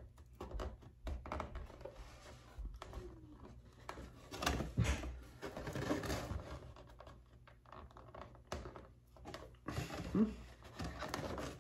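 Fingers and fingernails picking and scratching at tape stuck on a part, working it loose, with irregular light scratches and small handling clicks.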